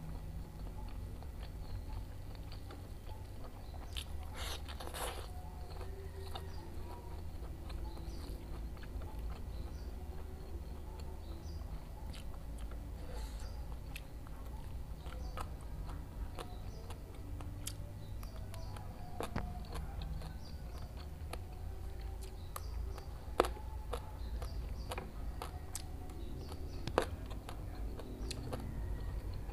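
Close-up mouth sounds of eating smashed fried tofu and tempeh with sambal and lalapan vegetables: steady chewing and biting with occasional crunches and a few sharp clicks, over a low steady hum.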